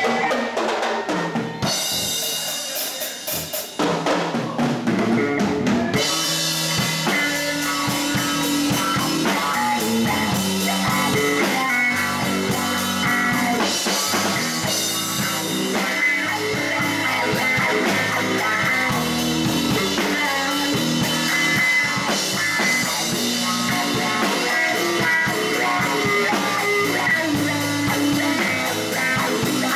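Live blues band playing: electric guitar and bass guitar over a drum kit. The band thins out and drops in level for a couple of seconds near the start, then comes back in full with a steady beat.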